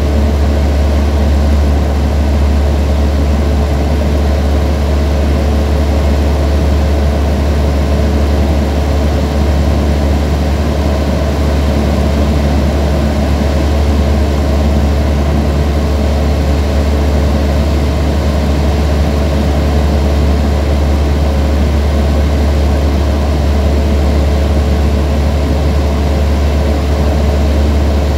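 Light propeller aircraft's engine running steadily in cruise: an even, loud, low drone with a few steady tones above it.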